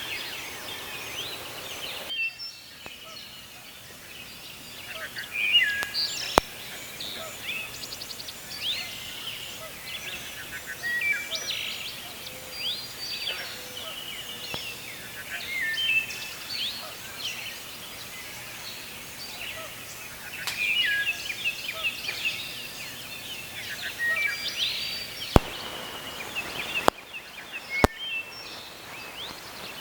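Several birds singing, short varied chirps and whistled phrases overlapping throughout, with a few sharp clicks.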